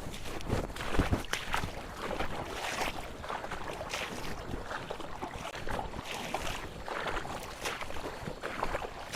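Dry grass rustling and swishing in irregular strokes, several a second, with a couple of heavier knocks near the start.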